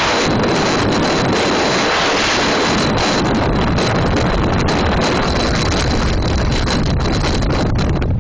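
Strong blizzard wind blasting across the microphone: a loud, steady rush of noise with a hissing top that drops away right at the end.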